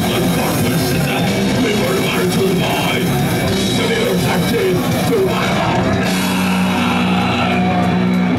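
Live heavy metal band playing distorted electric guitars, bass and drum kit at full volume, heard from within the crowd. About six seconds in, the drumming gives way to a steady held note ringing on.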